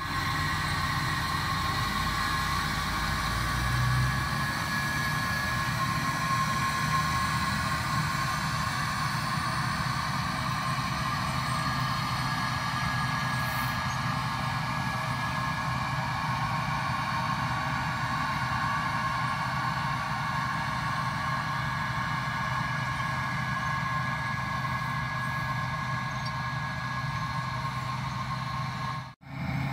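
Tractor running steadily while planting soybeans, a low engine drone with a steady whine over it.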